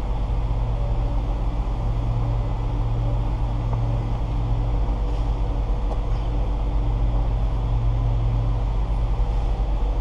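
A steady, low mechanical drone of running machinery, holding level and unchanging throughout.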